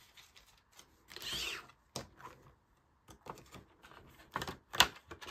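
Card and paper being slid into the pockets of a clear plastic ring binder: a rustling scrape about a second in, then a few sharp clicks and taps of the plastic binder, the last two near the end.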